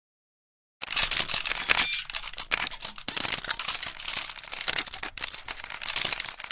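A barrage of many camera shutters clicking rapidly and overlapping, like a press pack photographing all at once. It starts about a second in.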